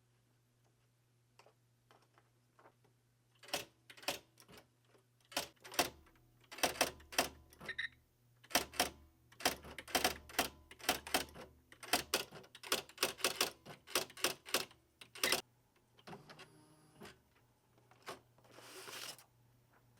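Typewriter keys being typed, a run of sharp, irregular strikes, about two to three a second, that stops a few seconds before the end. Near the end come two softer rushing sounds.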